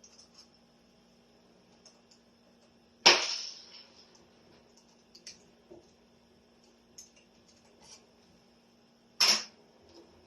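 Door lever hardware being handled: two loud sharp clacks, about three seconds in and again near the end, with small faint clicks between.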